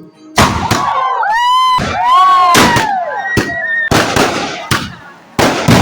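Firecrackers going off in a rapid series of loud bangs and crackles, with whistling tones rising and falling through the middle.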